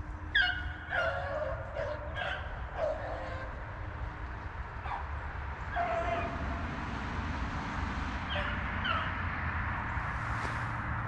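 A pack of rabbit hounds baying while running a rabbit's trail: scattered short yelping calls, falling in pitch, several in the first few seconds and a few more later on.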